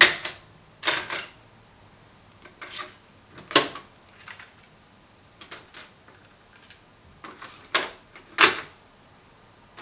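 Plastic clicks and clunks from the cassette decks of a Sony CFS-W600 boombox: a piano-key transport button pressed to stop, a cassette door opened, the tape pulled out and pushed into the other deck, and the door snapped shut. About a dozen sharp, separate clicks with quiet between them, the loudest a little past three seconds in and again near the end.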